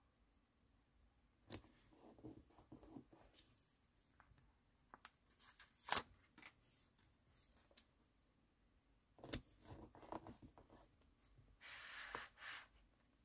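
Faint paper handling: sticker paper rustling on a notebook page, with a few sharp paper clicks, the loudest about six seconds in. Near the end a fine-tip pen scratches briefly across the paper.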